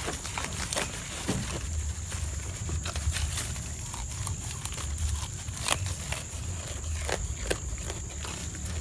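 A goat chewing and tearing awar-awar leaves close to the microphone: irregular crunching and crackling as it bites and pulls at the leafy stems, with leaves rustling.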